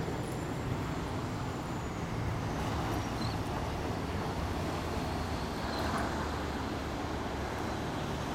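Steady low engine rumble and hum under a haze of outdoor noise, with no sudden events.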